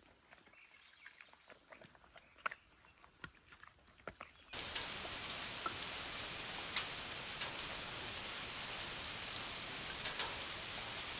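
Rain falling: a few scattered faint ticks at first, then a steady hiss of rain with scattered drops that starts suddenly about four and a half seconds in.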